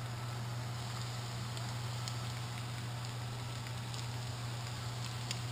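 Breaded fish fillets frying in hot oil in a skillet: a steady sizzle with scattered small pops, over a steady low hum.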